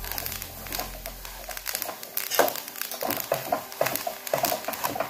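A metal slotted turner scraping and stirring roasted sesame seeds and melting jaggery around a metal kadhai: irregular scrapes with the seeds rattling against the pan.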